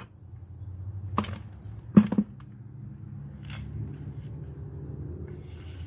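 Plastic 5-gallon buckets knocking as they are handled and pressed together into the stack: a light click, then one sharp hollow knock about two seconds in, then a few faint clicks.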